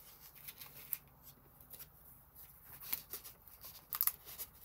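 Paper rustling as hands handle the pages and tucked-in tags of a handmade paper journal: a few short rustles, the loudest about four seconds in.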